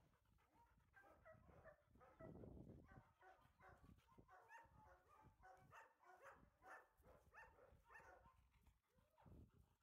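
Faint dogs barking and yelping, a run of short calls through the whole stretch.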